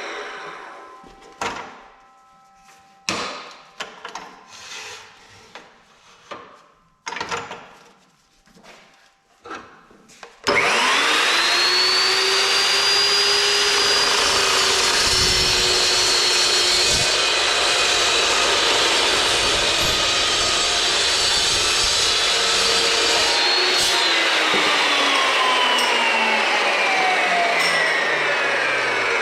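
A few sharp metal clanks as steel stock is handled, then about ten seconds in the Evolution 380 chop saw's motor starts with a rising whine and runs at full speed as the blade cuts through a bundle of 1/2-inch square steel tubing. Near the end the motor is switched off and winds down with a steadily falling whine.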